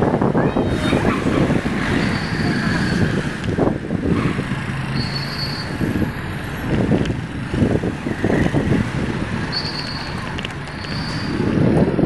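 Busy city street traffic heard from a moving rider: motorcycle and car engines with road noise, and gusty wind buffeting the microphone.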